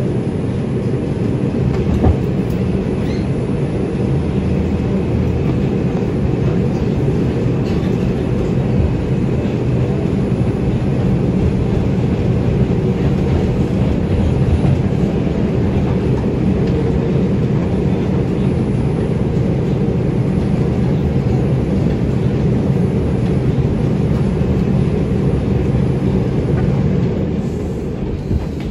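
R142 subway car running on elevated track, heard from inside: a steady low rumble of wheels on rail with a few faint clicks, easing slightly near the end.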